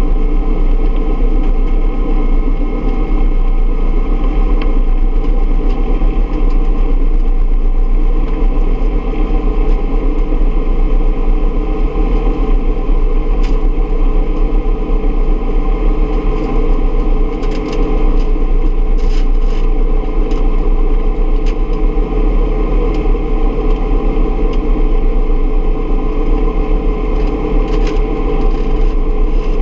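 1968 Bell UH-1 Huey helicopter running steadily, its turbine and rotors a continuous loud drone with a steady whine on top. A few faint clicks come through in the second half.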